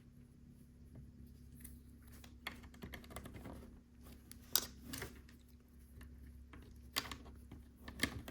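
Small plastic LEGO pieces being handled and pressed together: scattered light clicks and rattles, with a few sharper snaps, the loudest about four and a half seconds in.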